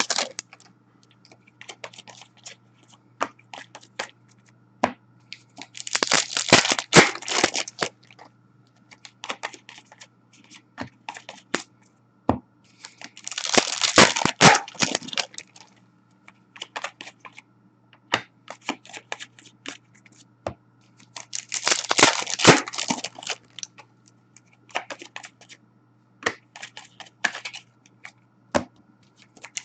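Foil trading-card pack wrappers being torn open and crinkled, in three bursts about two seconds long, spaced roughly seven to eight seconds apart. Light ticks and taps of cards being handled fall between the bursts, over a faint steady hum.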